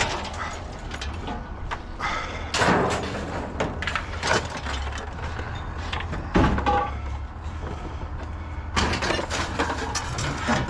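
Scrap metal being handled: a series of clanks and scrapes a second or two apart, the loudest about six seconds in, over a steady low hum.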